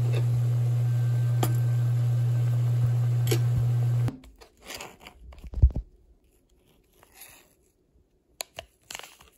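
A steady low electrical hum with hiss, like a kitchen appliance running, cuts off abruptly about four seconds in. Then come scattered rustles, a single loud knock and a few sharp clicks, as of a small packet being handled.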